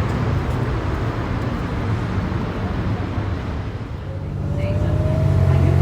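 City street traffic: a steady low rumble of passing vehicles that eases about four seconds in, then swells again with a faint rising whine.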